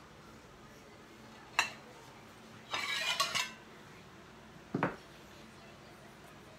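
Metal utensils clinking against plates: a sharp clink, then a short clatter of clinks about three seconds in, and a duller knock just before five seconds.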